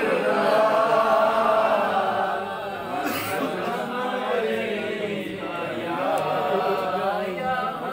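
Male voices chanting an Urdu naat unaccompanied, in long, gliding sung lines with no instruments.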